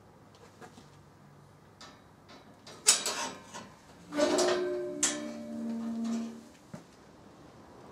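Steel-barred gate being unbolted and opened: a sharp clank of the sliding bolt about three seconds in, then a second loud metal strike a second later followed by a drawn-out metallic tone for about two seconds as the gate swings open, with a last small click near the end.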